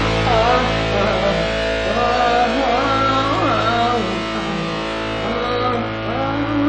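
Music: a wordless, sliding and wavering melody over a steady held backing.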